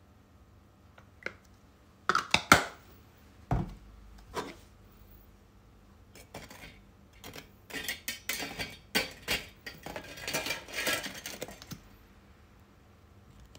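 Metal clinking and scraping as long stainless tongs work against a stainless steel tray and wire rack: a few sharp knocks in the first few seconds, then a busy run of clinks and scrapes from about six to twelve seconds in.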